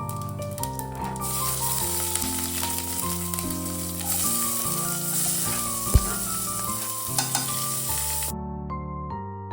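Food sizzling as it fries in a hot pan. The sizzle starts about a second in and cuts off suddenly near the end, with one sharp knock partway through.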